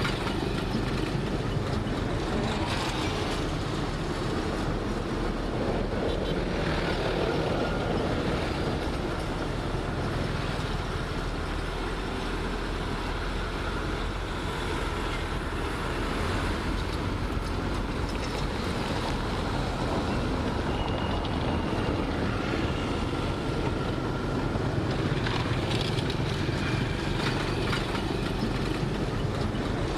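Heavy diesel earthmoving machinery running steadily under work, a deep continuous engine rumble with mechanical clatter. A faint, brief high squeal comes about two-thirds of the way in.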